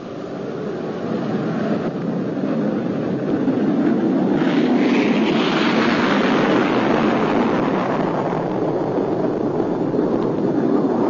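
Avro CF-105 Arrow jet fighter taking off, its twin Pratt & Whitney J75 turbojets giving a loud roar that swells over the first few seconds and then holds steady as the aircraft lifts off and climbs away.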